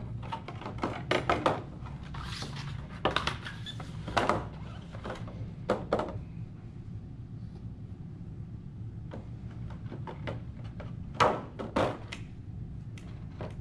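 Clear plastic packaging tray and glass pieces handled on a table: scattered clicks, plastic crackles and light knocks, over a low steady hum.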